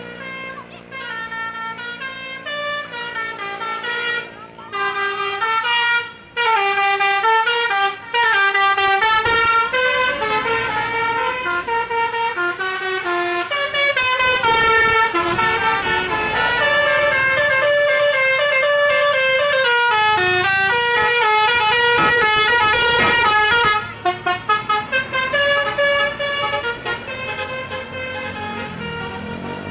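Indonesian bus 'telolet basuri' musical air horns playing a tune of stepping notes, several tones sounding together. There are short breaks about four, six and eight seconds in, and a run of quick short toots about 24 seconds in.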